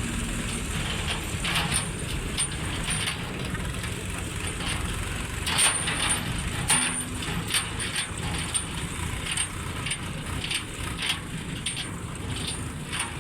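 Heavy farm machinery running: a steady low engine rumble with irregular metallic clicks and rattles over it.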